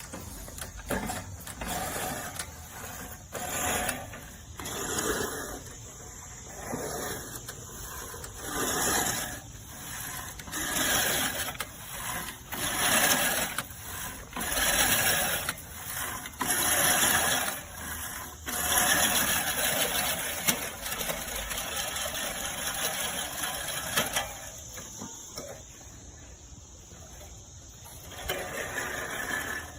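LawnMaster LMRM1602 16-inch five-blade push reel mower cutting grass in a run of pushes, its spinning blades rising and falling with each stroke about every one to two seconds, fainter near the end.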